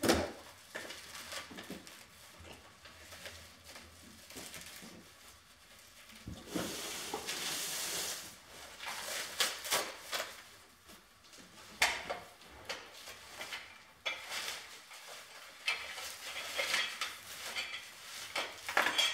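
Sections of an artificial Christmas tree being pulled out of a cardboard box: the stiff plastic branches rustle and the sections knock and scrape against the cardboard, in irregular bursts with a few sharp clicks.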